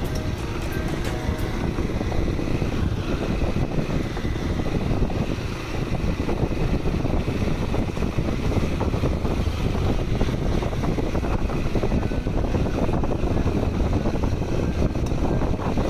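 Adventure motorcycle's engine running as it rides slowly over a rough dirt track, mixed with wind noise on the microphone.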